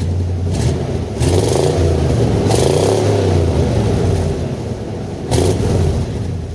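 A car engine revving up and down, its pitch rising and falling several times, with a few short rushes of noise over it.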